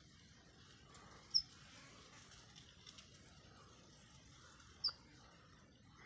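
A sparrow giving two short, high chirps about three and a half seconds apart, over faint background noise.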